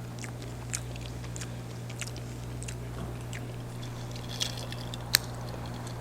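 Close-miked chewing and biting of food, with scattered small crunches and mouth clicks over a steady low hum.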